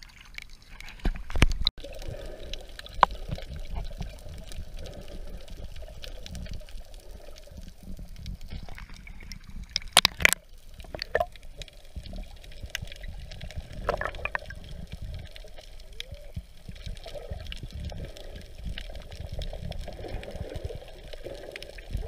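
Muffled water noise heard through an action camera's waterproof housing held underwater: a low rumble of moving water against the housing, with many small clicks and a few sharp knocks, the loudest a pair about ten seconds in.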